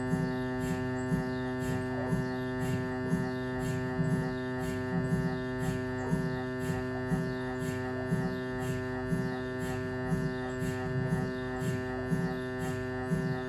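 Siemens Magnetom Avanto 1.5 T MRI scanner running an imaging sequence. Its gradient coils give a steady buzzing hum of many pitches, pulsing regularly at about two beats a second. It cuts in suddenly at the start, as a new sequence begins.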